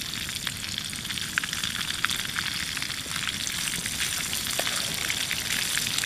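Dogfish pieces and boiled potato chunks sizzling in a frying pan on a gas stove, a steady hiss with constant crackling pops of spitting fat.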